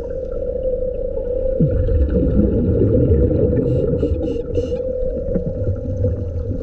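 Underwater sound under a steady hum: a scuba diver's regulator exhales a rush of bubbles for about three seconds, starting about two seconds in.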